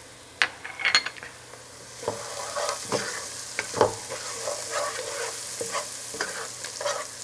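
A wooden spoon stirs and scrapes chopped onion and spices sautéing in oil in a metal pot: irregular scrapes and taps over a sizzle that grows louder about two seconds in.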